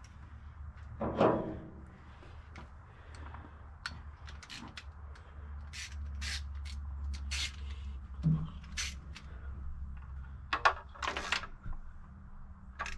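Scattered light metal clicks and clinks of hand tools as a new spark plug is threaded and snugged into the engine's cylinder head, over a steady low hum, with a brief louder sound about a second in.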